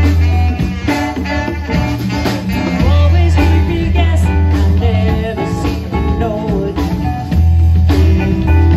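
Live band playing amplified music: electric guitar, bass and drum kit, with singing.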